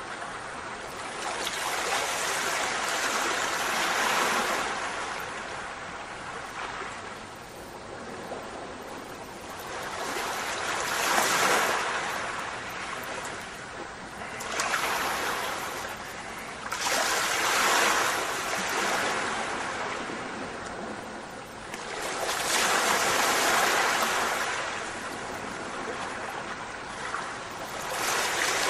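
Ocean surf: waves washing in and drawing back, one swell of noise every few seconds.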